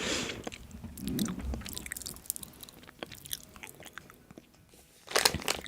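A person chewing and biting food close to the microphone, with wet mouth clicks and crackles. A louder noisy burst comes near the end.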